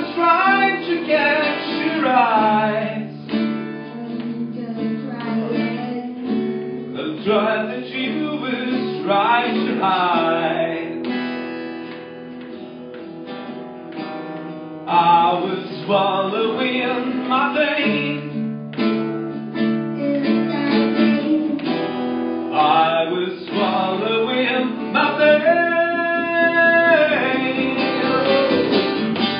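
Live acoustic guitar strummed, with a harmonica playing a melody over it that bends up and down in pitch.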